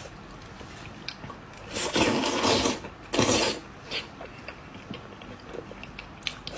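Close-miked mukbang eating sounds: two loud rushing, airy mouth sounds about two and three seconds in, between small wet clicks of chewing.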